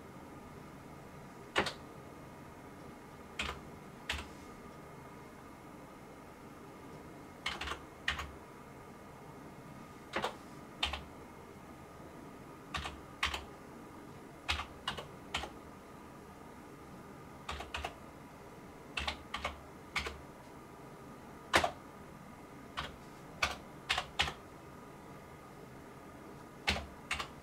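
Slow typing on a computer keyboard: single keystrokes and short runs of two to four, with pauses of a second or more between, as when a product key is typed in by reading it off.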